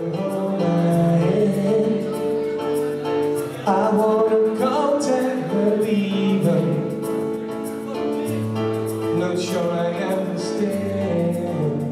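Background music: a song with singing over held chords.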